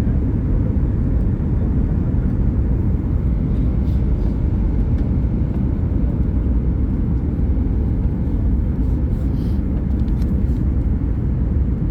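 Airliner cabin noise: a steady low rumble of jet engines and rushing air, heard from inside the passenger cabin.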